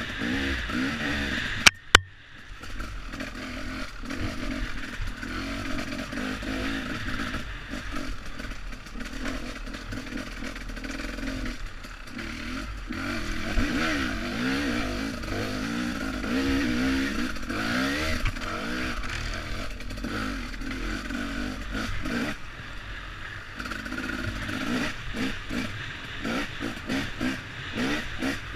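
2015 Husqvarna TE300 two-stroke single-cylinder enduro engine revving up and down continuously as the bike is ridden along a rough trail, with clatter from the bike. Two sharp, loud knocks close together about two seconds in.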